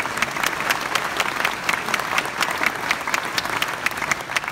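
Audience in a hall applauding: many hands clapping in a dense, even spray.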